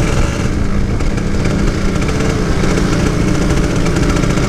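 Two-stroke engine of a Kawasaki Ninja 150 SE motorcycle running steadily while being ridden, its pitch wavering only slightly.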